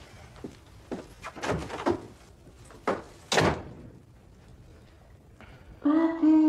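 A few knocks and clicks, then a door shut firmly about three and a half seconds in. Near the end comes a short, low-pitched sound.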